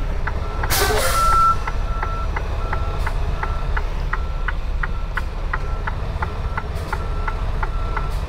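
Semi truck's backup alarm beeping steadily, with an even clicking about three times a second, heard from inside the cab over the low rumble of the idling diesel. About a second in there is a short, loud hiss of released air from the truck's air system.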